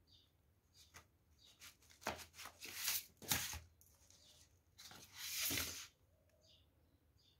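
Paper and card rustling as notebooks and folders are handled and their pages moved. It comes in a run of bursts, loudest in the middle and again about five seconds in, with a few faint bird chirps in the background.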